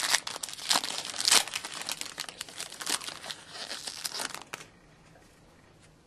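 Foil trading-card pack being torn open and crinkled in the hands: a dense crackling with sharp rips, which stops about four and a half seconds in.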